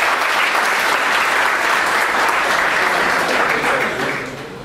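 An audience applauding, many hands clapping at once; the applause dies away about four seconds in.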